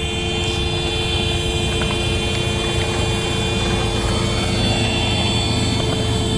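A vehicle's engine running steadily: a low rumble with a steady whine over it.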